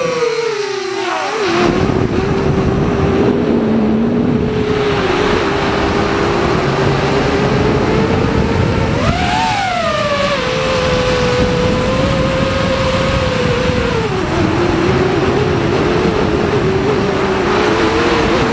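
A small aircraft's motor and propeller drone steadily in flight over rushing wind. The pitch wavers, rises briefly about nine seconds in, then settles back.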